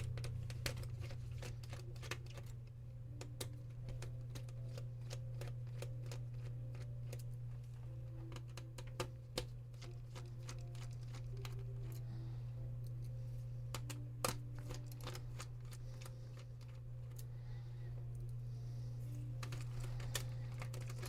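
Scattered light clicks and taps of small tools and plastic laptop parts as a laptop's LCD panel is worked loose and lifted out of its lid, with a few sharper clicks about nine and fourteen seconds in, over a steady low hum.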